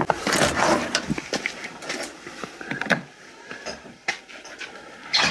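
A door being opened, with a rush of noise in the first second, then scattered footsteps and light knocks.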